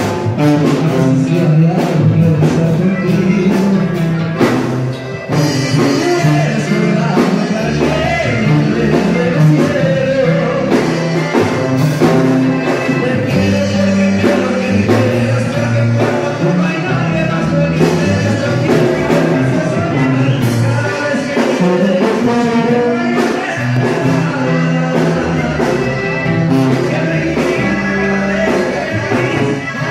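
Live band music in an instrumental stretch, with bass and percussion.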